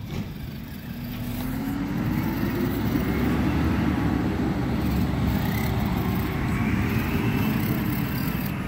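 Garbage truck engine running loud, revving up over the first few seconds so its pitch and loudness rise, then holding at a steady high rumble.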